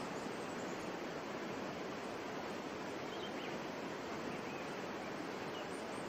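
Steady rushing of a mountain waterfall, water pouring down over rocks, with a few faint high chirps near the middle.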